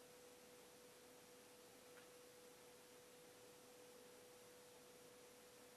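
Near silence: room tone with a faint, steady, single-pitched hum.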